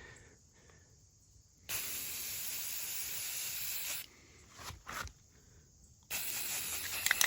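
Aerosol can of gloss red spray paint spraying in two bursts: a steady hiss of about two seconds starting near two seconds in, then another starting about six seconds in.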